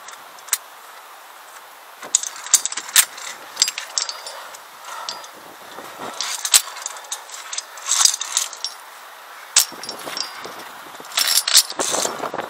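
Via ferrata lanyard carabiners clinking and clicking against the steel safety cable and each other, in bursts of sharp metallic clicks and jangles a few seconds apart. Gusts of wind hit the microphone near the end.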